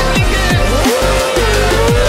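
Electronic background music with a heavy, steady bass and repeated falling bass sweeps about every half second.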